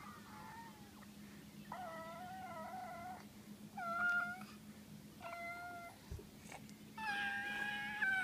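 Baby making a run of high-pitched squealing vocalizations, four separate drawn-out calls of about half a second to a second and a half each, the loudest and longest near the end.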